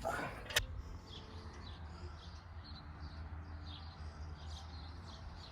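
Birds chirping in quick short notes over a steady low hum, with a sharp click about half a second in.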